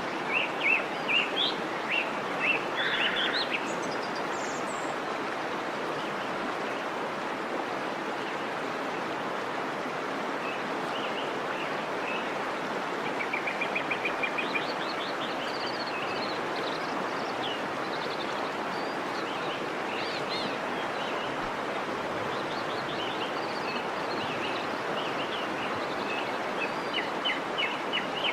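Running water of a stream, steady throughout, with small birds chirping over it: clusters of quick chirps in the first few seconds, again around the middle, and near the end.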